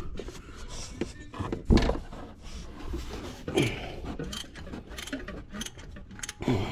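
Socket ratchet clicking in short irregular runs, with tool knocks and a louder thump about two seconds in, as a replacement oil pressure sensor is tightened into a 5.7L Hemi V8.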